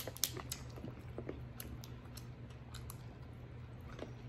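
Quiet eating sounds: chewing, with scattered small clicks and cracks of king crab shell being handled and picked apart by hand, over a low steady hum.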